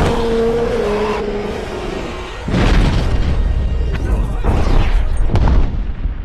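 Film soundtrack: music with a held note, then, about two and a half seconds in, a sudden loud boom that carries on as a deep rumble with whooshing sweeps, the sound of an action-scene explosion.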